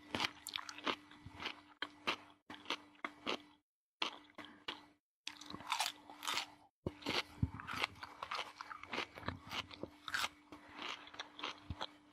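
Raw radish being bitten and chewed: crisp, wet crunching in quick irregular runs. The runs are separated by a few short dead silences, and a faint steady hum sits underneath.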